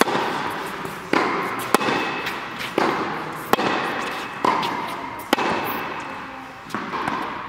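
Tennis rally: a tennis ball struck by rackets and bouncing on an indoor hard court, eight or so sharp pops about a second apart, each echoing in a large tennis hall.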